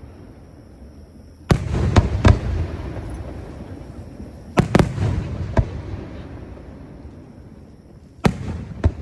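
Aerial fireworks shells bursting in three clusters of sharp booms, each cluster trailing off in a low, rolling rumble.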